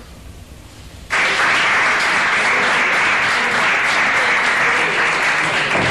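Audience applauding, starting abruptly about a second in and carrying on steadily.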